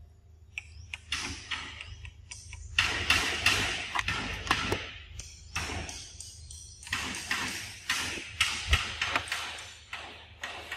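Repeated close bursts of rustling and scuffling with sharp clicks, from monkeys moving and handling food right by the microphone.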